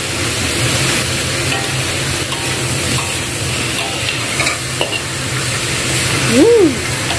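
Sliced bamboo shoots stir-frying in a wok: a steady sizzle with a metal spatula scraping and tossing the food against the pan. Near the end a brief tone rises and falls.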